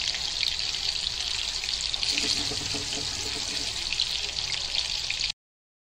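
Chicken kebabs shallow-frying in hot oil in a pan: steady sizzling with small crackles. It cuts off abruptly about five seconds in.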